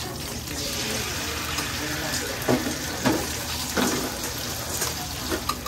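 Beaten egg sizzling in a hot oiled square tamagoyaki pan over a gas flame, a steady hiss, with a few light knocks in the middle.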